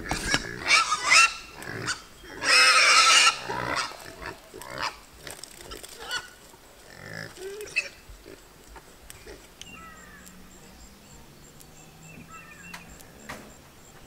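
Pigs squealing at feeding time: several loud cries in the first few seconds, the longest lasting about a second, then fainter sounds.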